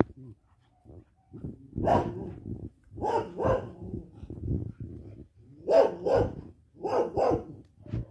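A dog barking about seven times in short, sharp barks, mostly in quick pairs.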